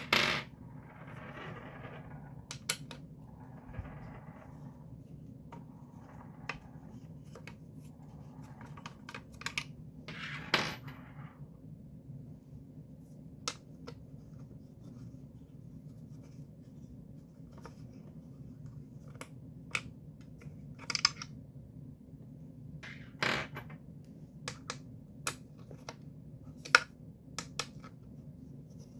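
Scattered clicks, taps and knocks with a few short rubbing or scraping sounds as objects are handled, over a steady low hum.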